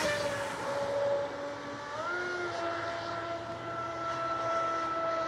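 High-pitched whine of a Proboat Supersonic Wake 48 RC speedboat's TP4090 730kv brushless motor running at speed on the water. The pitch steps up slightly about two seconds in, then holds steady.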